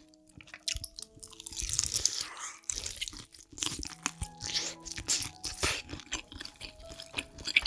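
Close-miked eating: a person biting and chewing crunchy food, with irregular crunches, some of them loud, and a longer noisy stretch about two seconds in.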